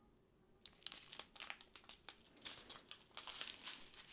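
Small clear plastic bags of diamond-painting resin drills crinkling and rustling as they are handled, with irregular small clicks, starting under a second in.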